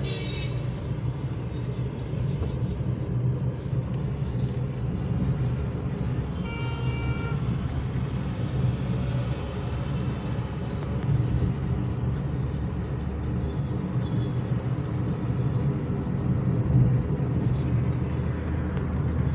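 Steady low rumble of a Suzuki car's engine and tyres heard inside the cabin while driving on a city road. A short horn toot from traffic sounds about six and a half seconds in.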